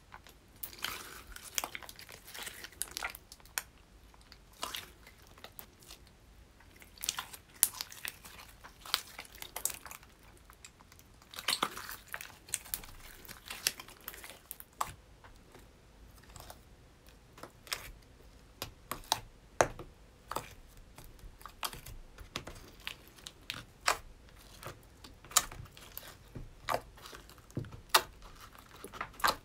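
Orange slime being squeezed, pulled and torn by hand, giving irregular sticky pops and crackles. Near the end, fingers press and poke the slime in its plastic tub, making quick clicking pops.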